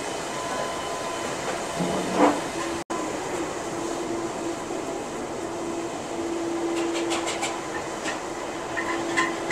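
Steady roar of commercial gas burners running under large aluminium cooking pots, with a faint hum. A short scrape about two seconds in and a quick run of light clicks about seven seconds in.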